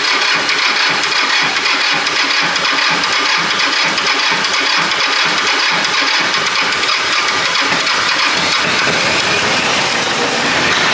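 Cub Cadet compact tractor's diesel engine running steadily with an uneven low beat. It is a hard-starting engine that is due new glow plugs.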